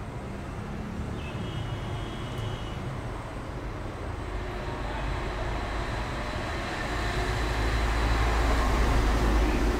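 Street traffic noise with a motor vehicle's low engine rumble growing louder over the last few seconds as it draws near.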